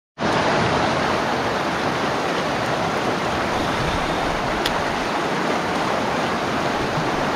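Mountain stream water rushing steadily over rocks, after a brief dropout at the very start.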